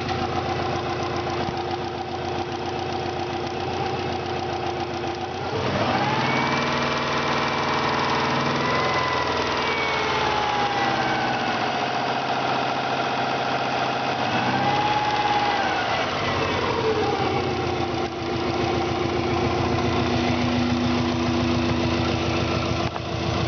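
1995 Subaru WRX's turbocharged EJ20G flat-four idling, then revved up about five seconds in, held raised for about ten seconds and let fall back to idle. The owner hears a knocking from the top of the engine; the engine has a hole in a piston and an exhaust leak.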